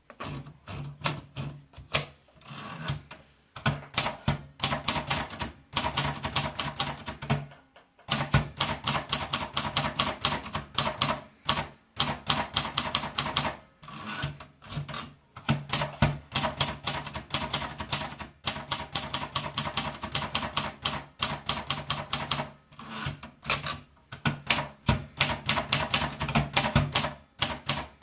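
Monditype manual typewriter being typed on: runs of quick key and typebar strikes, several a second, broken by short pauses.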